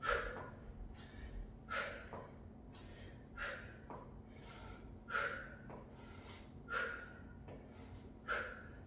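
A woman's short, sharp breaths in time with a standing leg-circle exercise, six in all, evenly spaced about every second and a half or so.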